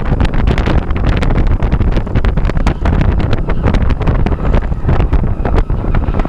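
Heavy wind buffeting on the microphone in the open cabin of a Honda S2000 roadster with its top down, with the car's engine running underneath as it is driven around the course.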